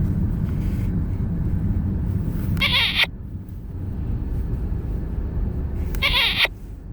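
Steady low road rumble inside a moving car, broken twice by a short, high cry that falls in pitch, about two and a half and six seconds in.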